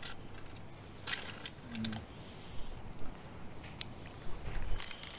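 Quiet background with a few faint, scattered clicks and ticks: about a second in, near two seconds, and again near the end.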